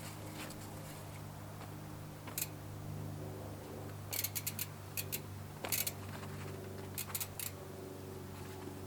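Light, sharp metallic clicks of a bike multitool bit working on a disc brake rotor's T25 bolts: a single click, then a quick run of clicks in the middle, and a few more later, over a steady low hum.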